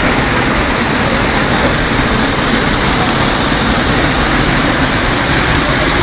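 Rushing water of a rocky stream and waterfall: a loud, steady, even rush with no breaks.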